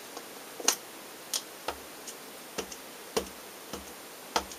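An ink pad dabbed again and again onto clear rubber stamps on an acrylic block: a run of light, uneven taps, about seven in all, roughly half a second to a second apart.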